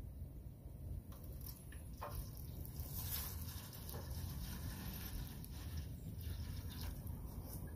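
Water pouring in a stream from a large plastic water jug into an aluminium foil tray, starting a couple of seconds in.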